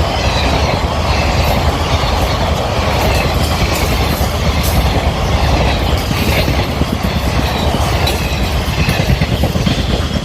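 Indian Railways passenger train of ICF coaches running along the track: a steady loud rumble with wheels clattering over the rails and a little wheel squeal.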